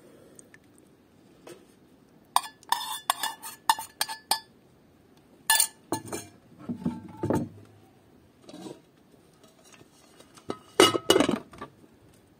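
Metal spoon clinking and scraping against an enamel bowl in quick runs of sharp clinks, with a few duller knocks of cookware set on a wooden table.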